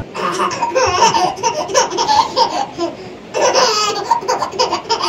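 People laughing hard, in rapid bursts of laughter with short breaks.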